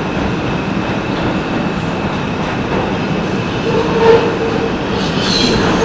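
Steady running noise of an R142 subway train heard from inside the car as it travels through a tunnel. The wheels start to squeal about four seconds in as the train nears a station.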